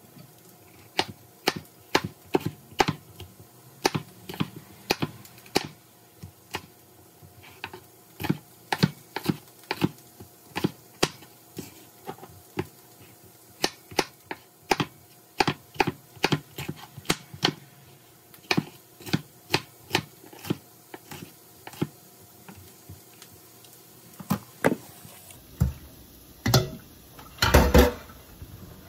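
Chef's knife chopping a yellow bell pepper on a plastic cutting board: a long run of sharp, irregular taps, one to three a second. Near the end a few louder knocks.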